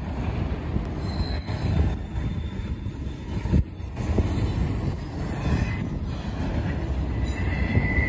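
Norfolk Southern freight train of autorack cars rolling past: a steady rumble of wheels on rail. Thin, high-pitched wheel squeal comes and goes, and a steady squeal tone sets in about seven seconds in.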